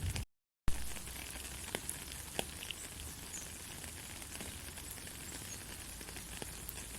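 Steady rain falling, an even hiss with scattered sharp drip ticks. Near the start it cuts out completely for about a third of a second, then comes back suddenly.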